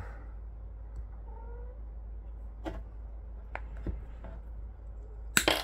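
Wire cutters snipping through a piece of 14-gauge solid copper wire, heard as a few sharp clicks a little before the middle and again about a second later. A short, faint pitched call sounds about a second in.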